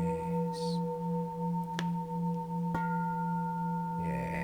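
Antique bronze Japanese Buddhist temple bell ringing, a long sustained hum with several higher overtones and a slow waver in the low tone. It is struck again about two and a half seconds in, renewing the ring.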